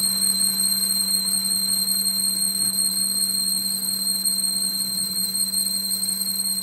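A machine running steadily: a low hum with a constant high-pitched whine over a hiss, with no change in speed.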